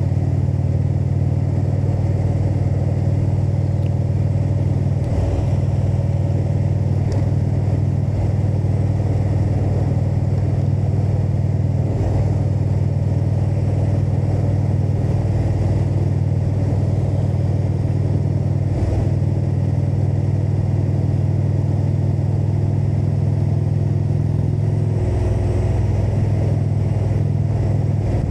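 Indian Super Chief Limited's V-twin engine with Rush exhaust running steadily under way on the road. The engine note changes near the end.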